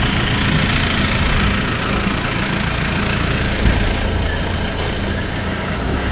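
Steady vehicle engine and road noise with a low hum, with one brief thump a little past halfway.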